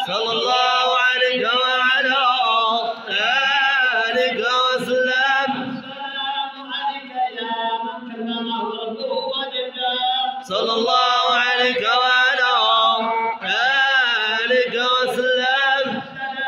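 Men's voices chanting Arabic praise songs for the Prophet Muhammad (madih) without instruments, a lead singer at a microphone with others joining. The chant runs in long held phrases with short breaks about three, ten and thirteen seconds in.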